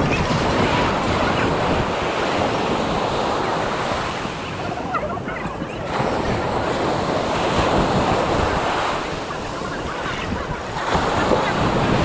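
Ocean surf washing onto a beach, with wind buffeting the microphone. The rush of the waves swells and eases, dipping about halfway through and building again near the end.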